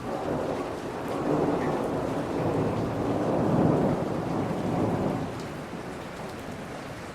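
Steady rain falling, with a long roll of thunder that swells about a second in, peaks near the middle and fades away over the next few seconds.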